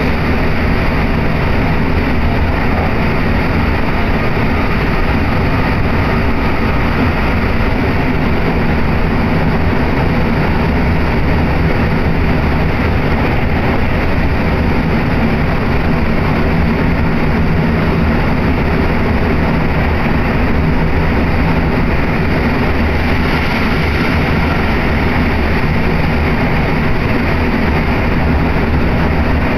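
Steady running noise heard inside the carriage of a moving electric commuter train, mostly a low, even rumble that does not change.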